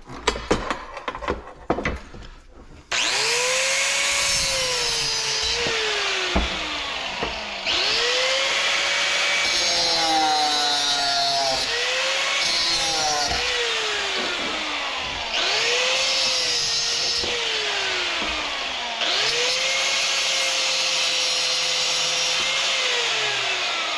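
A handheld power tool run five times in stretches of about four seconds, each time spinning up quickly and then slowing as it bites under load, with a loud rasping noise. It is taking parts off scrap metal. A few clicks and knocks of handling come before it, in the first three seconds.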